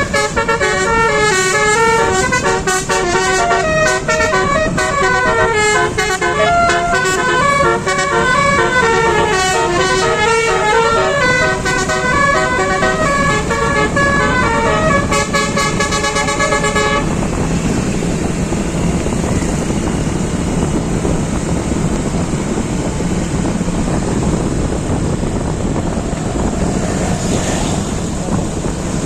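Bus 'telolet' multi-tone musical horn (Basuri type) playing a fast, stepping tune at length, cutting off abruptly about 17 seconds in. A steady engine and road noise continues under it and after it.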